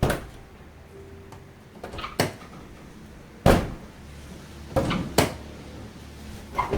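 Isuzu pickup's sagging car door being worked open and shut: five separate sharp clunks and knocks of the door and its latch, the loudest about halfway through.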